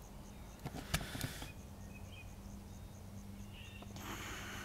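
Quiet outdoor ambience with faint, evenly spaced high ticks, about five a second, and a few sharp clicks about a second in. A light hiss rises near the end.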